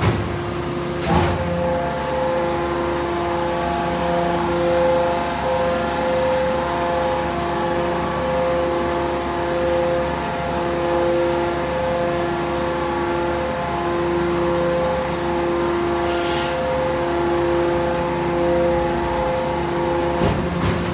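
Hydraulic metal baler's power unit running: a steady hum of several held tones, one of them pulsing slowly, with a short knock about a second in and another near the end.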